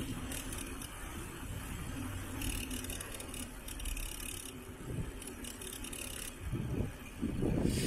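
Mountain bike being ridden over rough ground: an uneven rolling noise from the tyres, with scattered clicks and rattles from the bike.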